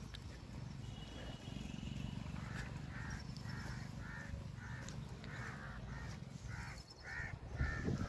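A crow cawing over and over, starting about two and a half seconds in, at roughly two caws a second, over a steady low rumble.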